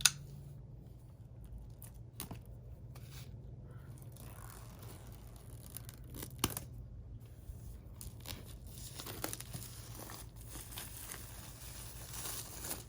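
A knife cutting and tearing open the plastic wrap on a cardboard box: scattered sharp clicks and scrapes, then a longer stretch of tearing and rustling in the last few seconds.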